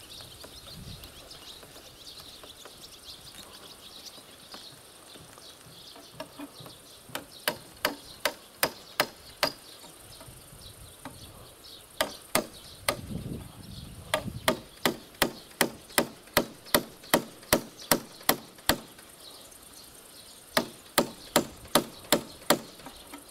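Hammer driving large nails into a wooden log beam: sharp, steady blows at about two to three a second, in three runs with short pauses between.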